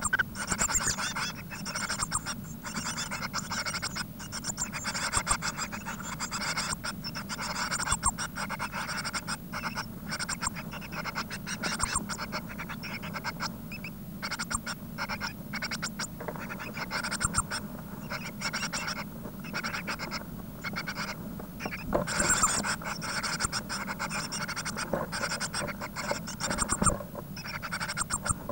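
Blue tit nestlings heard from inside the nest box: a continuous chorus of thin, high begging calls, mixed with scratching and rustling as the chicks shift about on the nest material.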